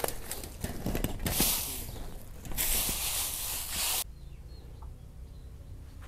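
Rustling and crunching of dry straw and bamboo leaves being walked over and disturbed, with scattered clicks. It gets louder and fuller about a second in and stays loud until about four seconds in, then drops to quieter, occasional crackles.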